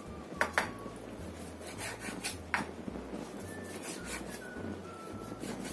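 Kitchen knife slicing raw chicken on a bamboo cutting board: a handful of separate knife strokes knocking on the board, one to two seconds apart.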